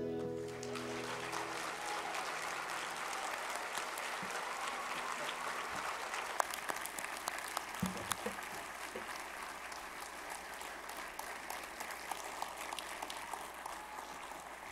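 The band's last chord dies away in the first moment, then the congregation claps, the applause slowly thinning out toward the end.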